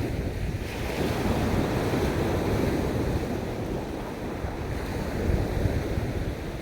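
Sea waves washing onto a beach, a continuous low surf wash with wind buffeting the microphone as a low rumble.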